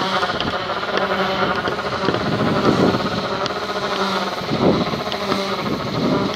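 An engine running steadily, with a couple of brief louder noisy swells.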